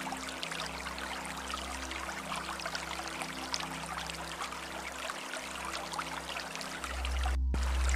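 Running water from a small stream, trickling and splashing steadily over a low rumble. The rumble grows louder about seven seconds in, and the splashing drops out for a moment just after.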